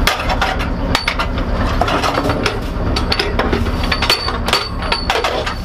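Irregular metallic clanks, knocks and clinks from ammunition being handled inside an M109A7 Paladin howitzer's turret, with a few short ringing metal tones. A steady low vehicle hum runs underneath.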